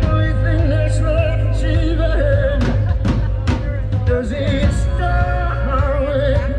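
Live band playing amplified music outdoors: a singer holding long, wavering notes over acoustic and electric guitars, with drum hits keeping the beat.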